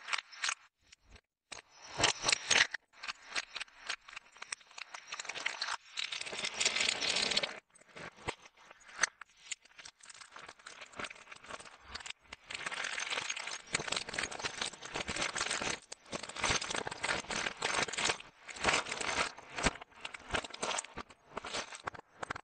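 Snack packaging handled up close: foil and plastic wrappers crinkling in several long stretches, between light clicks and taps as sweets and chocolate-coated biscuit sticks are set onto a wooden platter.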